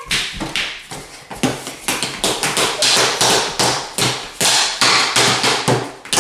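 Wooden spoons striking a plastic folding tabletop again and again in rapid, irregular taps, several a second, as toy spiders are swatted.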